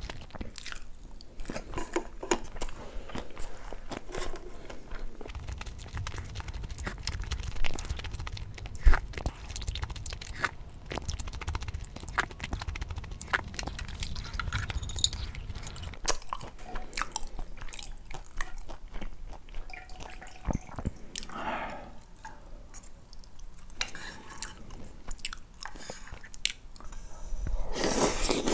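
Close-miked mukbang mouth sounds: chewing and crunching fried cheese pork cutlet and rice, with many small wet clicks. Near the end a louder stretch of eating noise as food from a small bowl goes into the mouth.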